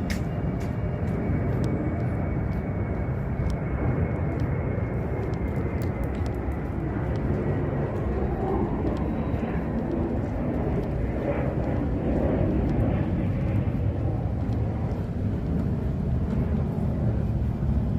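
Jet airplane passing low overhead: a steady low rumble with a faint high whine that slowly falls in pitch over the first several seconds.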